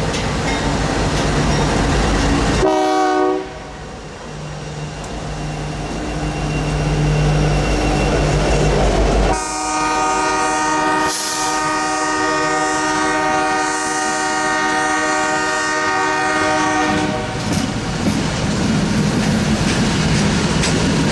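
Train horn sounding over the rumble of a train: one short blast about three seconds in, then one long blast of about seven seconds. After the horn stops, the wheels clatter on the rails.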